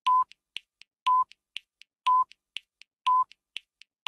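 Countdown timer sound effect marking off the seconds: a short electronic beep once a second, with three quieter ticks between each beep and the next.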